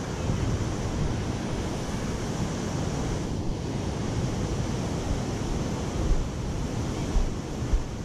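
Ocean surf washing on the beach, with wind buffeting the microphone in a steady rush and a few brief gusts near the end.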